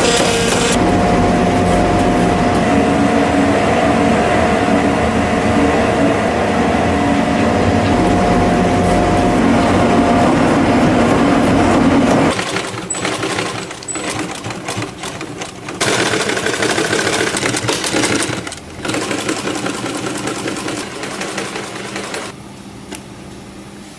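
Electric motor of a shoe-repair workshop machine running steadily, then cutting off about halfway through, followed by quieter, uneven working noise with a couple of louder stretches.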